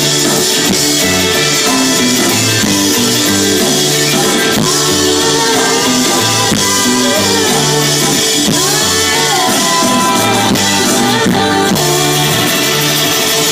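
Live rock band playing loud, guitar over bass and drums, as heard from the crowd at an open-air show.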